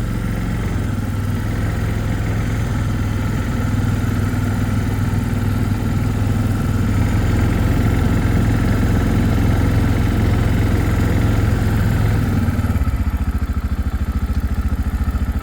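Four-wheeler (ATV) engine running steadily, then dropping to a pulsing idle about thirteen seconds in.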